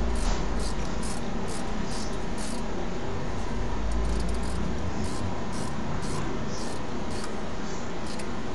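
Ratchet with a 7 mm hex bit driving in the long bolts of a BMW 320d's rear brake caliper: short rasping clicks of the ratchet's back-stroke, about two a second, over a steady low rumble.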